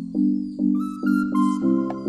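Background music: pulsing chords repeating about twice a second, with a higher melody coming in partway through.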